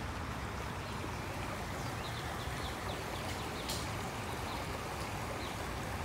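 Shallow stream running over rocks: a steady water hiss, with a few short, faint high chirps in the middle.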